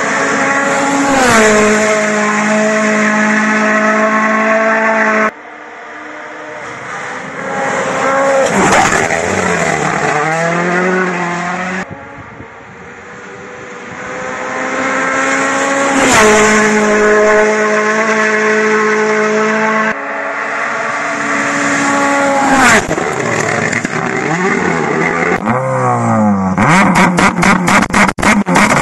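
Rally car engines running hard at high revs in several short clips, one cut after another. The pitch drops and climbs again as the cars lift, shift and brake. Near the end a rapid string of crackles sounds over the engine.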